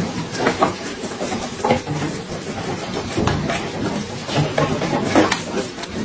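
A herd of spotted deer fawns jostling at a wooden bottle-feeding rack: irregular clattering and knocks, a few per second, over a steady rushing background.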